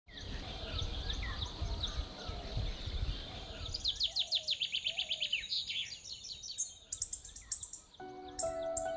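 Wild birds chirping and singing, with a fast run of repeated high trill notes from about four seconds in. A low rumble sits under the first three seconds. Music with sustained notes comes in about a second before the end.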